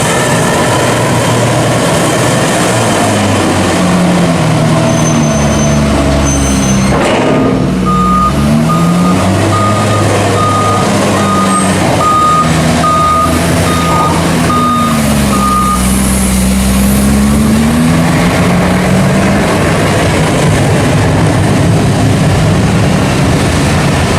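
Heavy diesel loader working maize silage, its engine revving up and down repeatedly as it shifts the load. In the middle a reversing alarm sounds about eleven evenly spaced beeps as the machine backs up.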